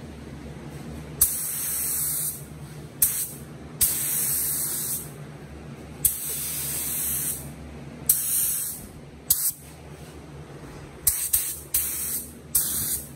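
Handheld paint spray gun spraying in about nine short passes, each a hiss of air and paint mist that starts with a sharp puff as the trigger is pulled. The passes last from a fraction of a second to over a second, and they come more quickly near the end. A steady low hum runs underneath.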